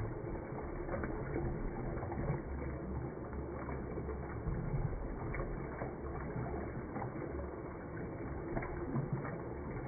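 Toilet flushing: water rushing as it swirls around the bowl and down the drain, with many small gurgling clicks and pops.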